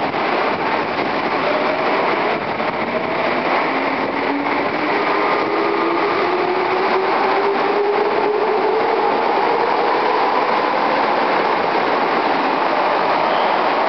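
Tokyo Metro 05 series (N05) subway train accelerating away from the platform: its traction motors whine in several tones that rise steadily in pitch over about eight seconds, over a rumble of wheels on rail that grows louder as the train gathers speed.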